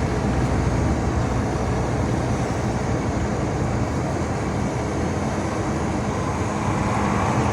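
Volkswagen Constellation 19.320 truck cruising on the highway, heard from inside the cab: a steady engine drone mixed with road and tyre noise.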